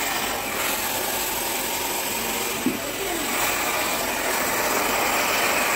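Handheld hair dryer running steadily, blowing air through hair during a round-brush blow-dry, with a brief knock about two and a half seconds in.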